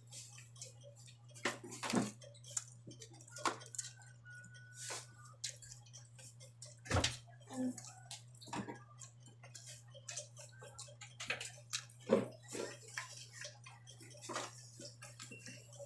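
Close-up eating sounds: wet chewing and lip-smacking with scattered sharp clicks, over a steady low hum.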